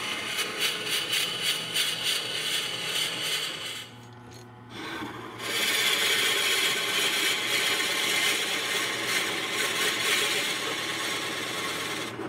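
A Forstner bit in a tailstock drill chuck boring into the end grain of a spinning wooden blank on a lathe, with a rhythmic scraping cut. About four seconds in, the cutting stops briefly and leaves the lathe's low hum, then resumes louder and steadier as the bit is fed deeper.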